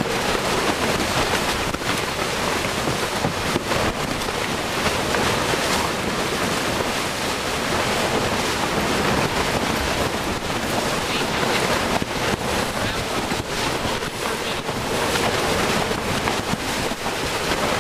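Steady wind noise on the microphone, mixed with water rushing along the hull of a sailboat under way.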